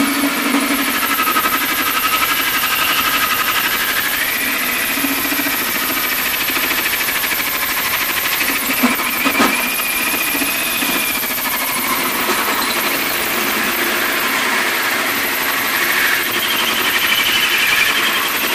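Cordless drill spinning a hole saw through the sheet steel of a metal ammo box under light pressure, a steady grinding cut with a wavering metallic squeal. There are a couple of short knocks about halfway through.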